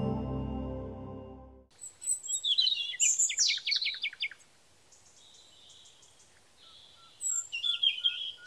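Soft ambient music with held notes cuts off early, giving way to birds chirping and singing: a run of quick chirps and falling trills, a quiet lull with faint repeated peeps, then another burst of calls near the end.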